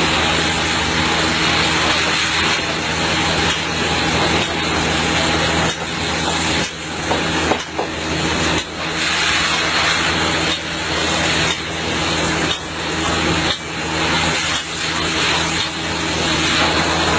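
Heavy-equipment engine running steadily under a loud, rushing noise, with a few short knocks.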